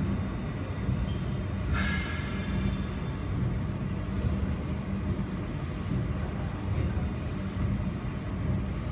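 A steady low rumbling hum, with one brief higher-pitched squeak about two seconds in.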